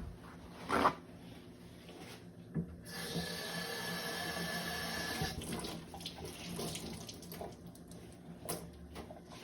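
Kitchen tap running for about two and a half seconds, likely wetting a paper towel to cover the dough, with a few small knocks around it.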